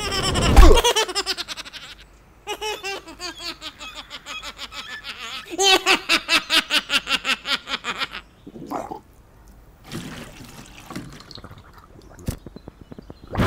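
A cartoon character's rapid, high-pitched cackling laugh, in quick repeated bursts that drift down in pitch over several seconds. Less than a second in, a falling glide ends in a loud thump.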